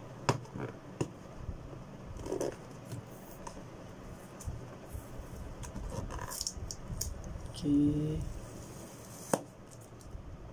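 Fingers rubbing, scraping and tapping on a cardboard product box as it is handled and opened, with a sharp click about nine seconds in.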